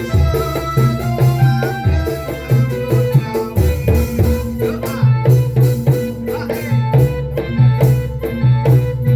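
Music with a steady hand-drum beat under melodic instruments, in a folk or traditional style.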